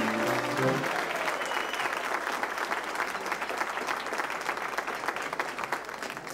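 Large audience applauding, the claps dying down slowly. Music plays under the applause at first and ends within the first second.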